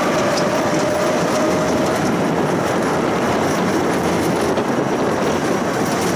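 Tram running along the track, heard from inside the car: a steady rumble of wheels on rail, with a thin tone that fades out about two seconds in.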